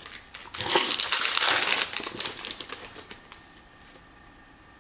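Crinkling and crackling of a foil trading-card pack wrapper being torn open and handled. It is dense and crackly for about a second and a half, then dies away.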